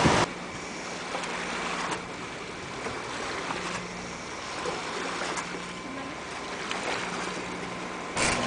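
Sea water washing along the hull of a sailing catamaran under way on a calm sea, with a faint, steady low hum from its engine that fades in and out.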